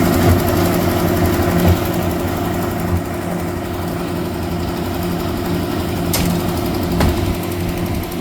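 Engine of a lift-type concrete mixer running steadily with an even, pulsing hum. Two short sharp knocks come in the second half.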